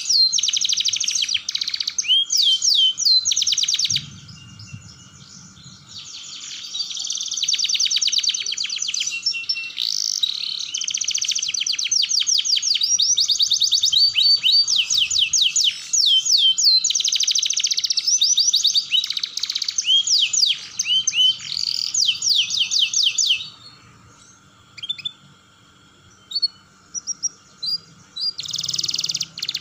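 Domestic canary singing long rolling trills of very fast repeated high notes, with a pause of a couple of seconds early on. Near the end the song breaks into scattered short chirps and one last brief roll.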